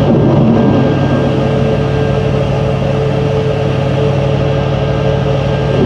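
Steady drone of a warship's engines and machinery heard on deck, a constant hum under a noisy rush.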